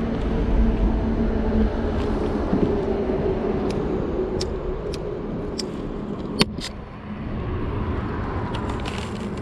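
Steady rumble of road traffic on the bridge deck overhead, with a low hum and a few sharp clicks, the loudest about six seconds in.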